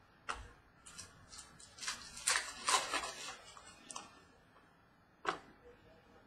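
Trading cards being handled: a string of short flicks and slides of card stock, thickest about two to three seconds in, with single sharp clicks near the start and about five seconds in.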